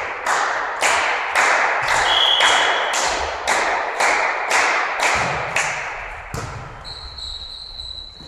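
Rhythmic clapping in unison, about two claps a second, echoing around a sports hall, stopping about six seconds in. A faint, steady high tone follows near the end.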